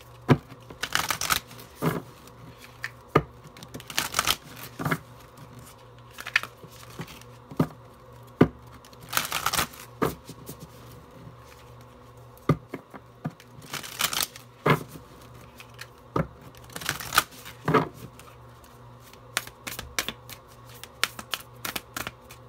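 A deck of tarot cards being shuffled by hand: uneven runs of quick swishes and card clicks, some sharper than others, with short pauses between.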